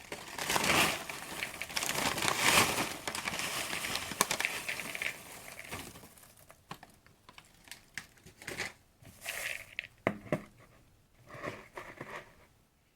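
Brown paper lunch bag crinkling and rustling as it is handled, dense for the first half, then only scattered short rustles and clicks.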